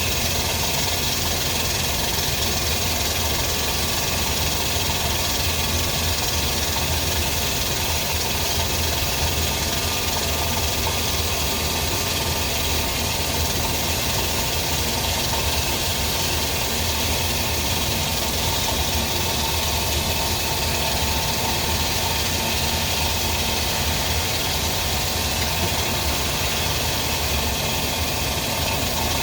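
Spindle of an FH680 CNC machine running steadily: a low hum under a broad hiss, with a few faint steady tones. The owner suspects a spindle bearing is behind the noise.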